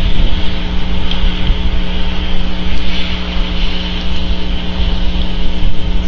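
Steady outdoor noise on a camera microphone: a wavering low rumble and a hiss, under a constant electrical hum.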